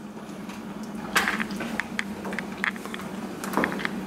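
Metal spoon stirring soup in an enamel pot, clinking and scraping against the pot's side in a run of short taps starting about a second in.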